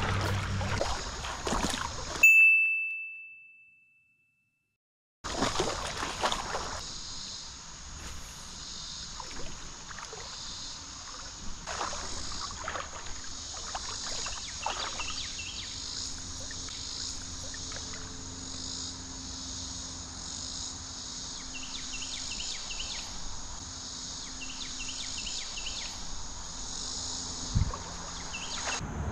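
A single bright ding rings out and fades about two seconds in, followed by a short spell of dead silence. Then comes steady creek ambience: an even high hiss with small groups of faint repeated chirps, and a dull thump near the end.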